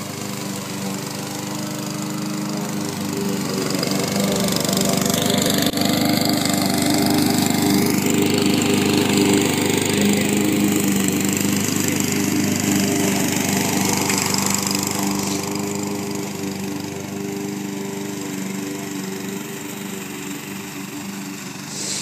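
Gasoline walk-behind lawn mower engine running steadily while cutting grass. It grows louder over the first several seconds as the mower comes closer, then fades as it moves away.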